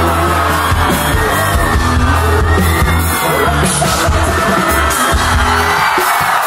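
Live band playing loud rock music, with heavy bass and drums under a singer's voice and shouts. The bass and drums drop out about six seconds in.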